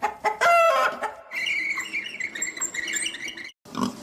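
Chickens clucking and calling: a short pitched call in the first second, then steadier calls until a brief cut near the end.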